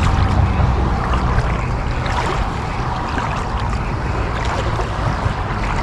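Wind buffeting the microphone over a steady wash of small waves lapping at the water's edge, with a low rumble throughout.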